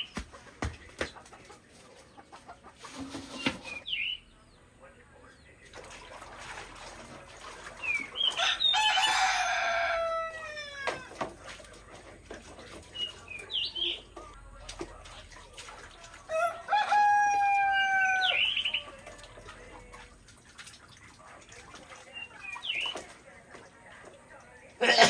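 A rooster crowing twice, a long crow about a third of the way in that falls in pitch at the end, and a second one a little past the middle. Short high chirps of small birds come now and then between the crows.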